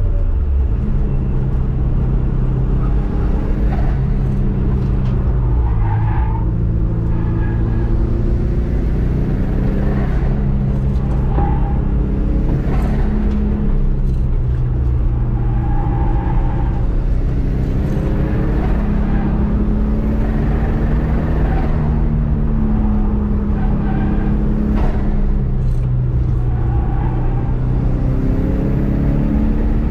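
Subaru EJ207 turbocharged 2.0-litre flat-four running hard on track, its pitch climbing and dropping in steps as the car accelerates and shifts through the gears.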